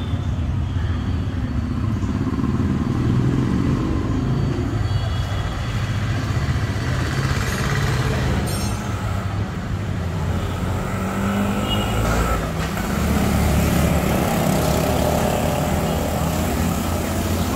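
Steady low engine hum of motor-vehicle traffic, swelling and easing over several seconds.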